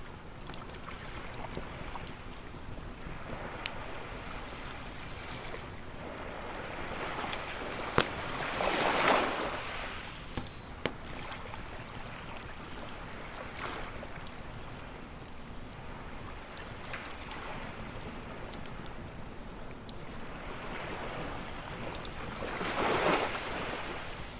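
Wood campfire crackling with scattered sharp pops over the steady wash of ocean surf. Two waves swell and break, about nine seconds in and again near the end.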